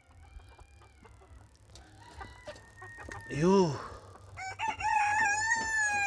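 A bantam rooster crowing: one long, high crow that starts about four and a half seconds in and is still going at the end. About a second before it comes a short, loud call that rises and falls in pitch.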